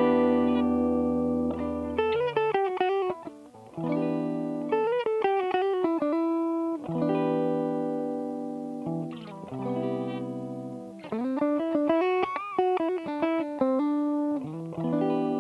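Aria Pro II Vanguard electric guitar played through an optical compressor pedal (a Thorpy FX Fat General clone) and a cab simulator: chords held with long, even sustain alternate with short single-note lead phrases with bends and vibrato.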